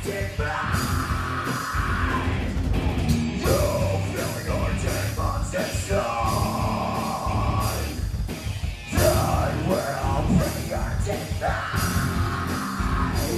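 A live heavy metal band playing: distorted electric guitars over a pounding drum kit, with a brief drop about eight and a half seconds in before the full band hits back in.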